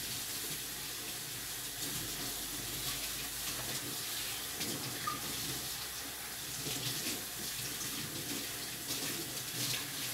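Kitchen sink tap running steadily while a washed dish is rinsed under the stream, the water splashing, with a few light clinks.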